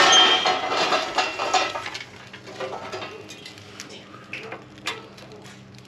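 Lit charcoal briquettes tumbling out of a folding metal charcoal chimney onto a metal fire pit's grate, clattering loudly for about two seconds, then a few lighter clinks as the last coals are shaken out.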